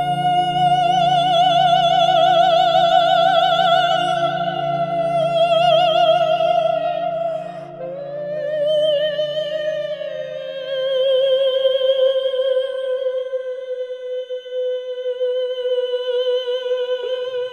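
A man singing long, wordless, wavering high notes into a studio microphone, in the manner of channelled vocal toning. A low hum sits beneath the voice and fades out about ten seconds in, and the held note drops lower about eight seconds in.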